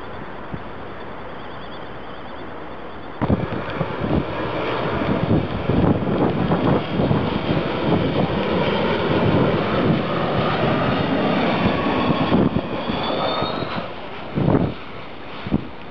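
Steady low background noise, then about three seconds in the jet engines of a LOT airliner on final approach come in suddenly and loud: a rumbling jet noise with a high engine whine over it. Near the end a high whine glides down as the noise fades, followed by two short buffets of wind on the microphone.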